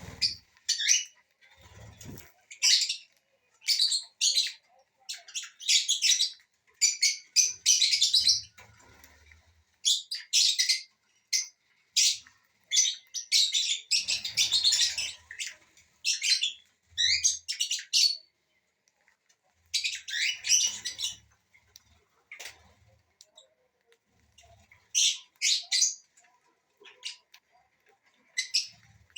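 Small pet parrots, lovebirds among them, chirping and squawking in short, shrill bursts that come in clusters with brief pauses between.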